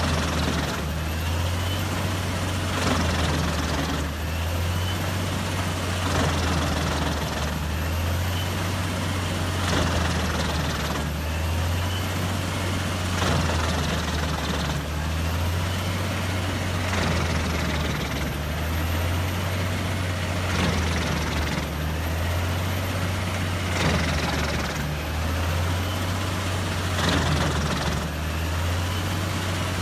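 Doppstadt DH812 mobile wood chipper running under load: a heavy, steady engine drone that swells and eases about every two seconds, with the hiss and grind of wood being chipped over it.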